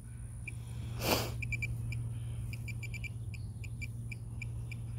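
A hand digger scraping once through a clod of soil about a second in, with short high chirps coming in irregular groups and a steady low hum underneath.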